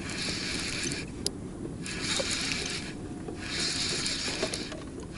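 Fishing reel being cranked in three spurts of about a second each while a hooked pike is played in on a bent rod.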